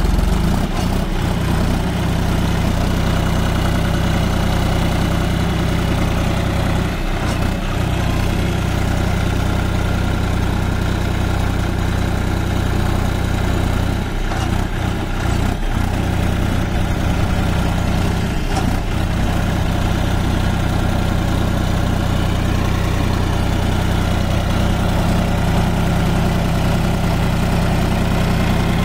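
John Deere tractor's diesel engine idling steadily, with a few brief knocks along the way.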